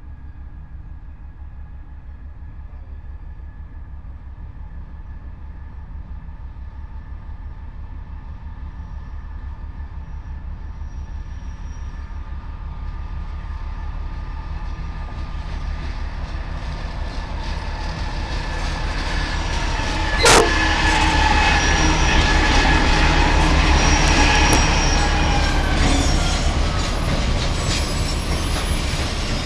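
USG DL535E narrow-gauge diesel locomotive approaching and passing, its engine rumble growing steadily louder as it nears, hauling loaded gypsum hopper cars. A single sharp bang comes about two-thirds of the way through, and high wheel squeal rises from the cars as they roll by.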